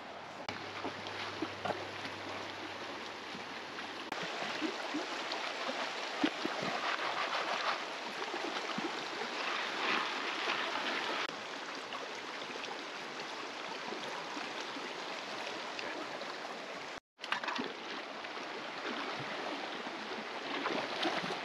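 Creek water flowing in a steady hiss, with small clicks of stones scattered through it. It drops out completely for a moment about three quarters of the way through.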